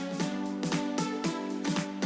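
Background music: sustained chords with plucked notes falling in a steady, even rhythm about four times a second.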